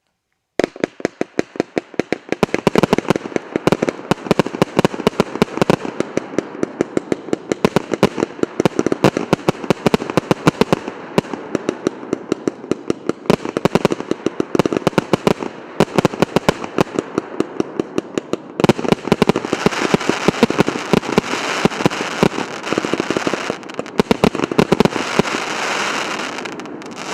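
A 100-shot 1.2-inch firework cake firing: sharp launch and burst bangs in quick succession, several a second, starting about half a second in. About two-thirds of the way through, the shots thicken into a dense, continuous crackle.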